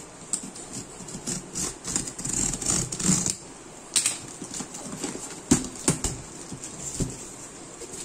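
Packing tape on a cardboard shipping box being slit with a pen and the flap pulled open: scraping and tape crackling, with a few sharp clicks.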